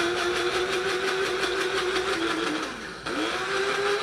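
Electric blade spice grinder running in pulses, chopping dried wasabi seaweed snacks into powder. The motor runs at a steady pitch, slows off briefly a little before three seconds in, then starts up again.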